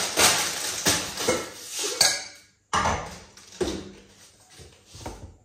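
A plastic bag of salad greens rustling as it is handled, then, after a brief break, a stainless steel saucepan knocking and clinking a few times.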